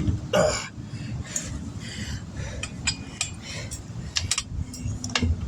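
Hand tire tools clinking and clanking against a steel wheel rim as a low-profile tire's bead is being forced free by hand.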